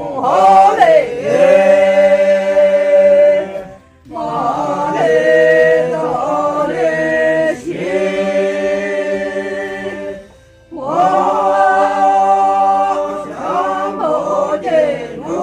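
Unaccompanied singing in long, held phrases, breaking off briefly about 4 and 10½ seconds in before starting again.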